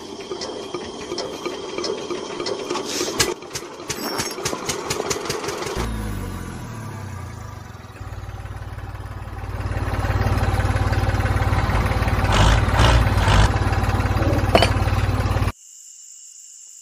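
Tractor engine sound, clattering and cranking at first, then catching and running at a steady low chug. It gets louder about ten seconds in and cuts off suddenly near the end.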